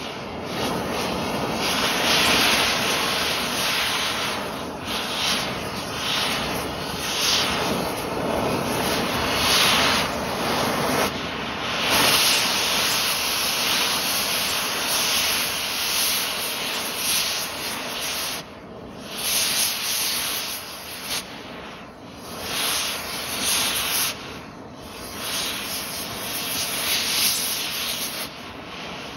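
Oxy-acetylene torch flame hissing as it melts and burns a pistol. The hiss swells and sags every few seconds as the torch is moved about, with a few brief dips in the last third.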